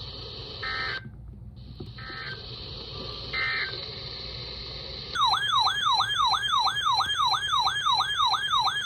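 Emergency Alert System audio over broadcast hiss: three short data-tone bursts about a second and a half apart, the end-of-message code that closes an alert, then a loud electronic alert tone warbling up and down about three times a second, starting a little after halfway.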